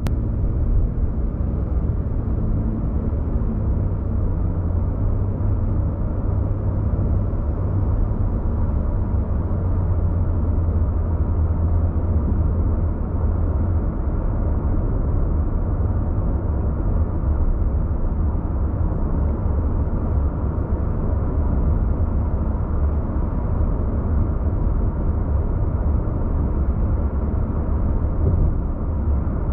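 A car driving at road speed, heard from inside the cabin: a steady low rumble of engine and tyre road noise. A low hum in it fades about halfway through, leaving the even rumble.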